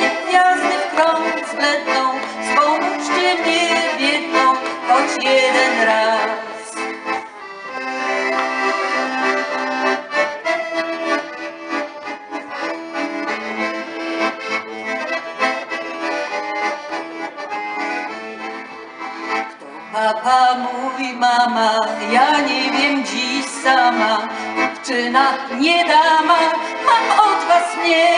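Piano accordion playing a melody over chords, dipping to a quieter passage about a quarter of the way in.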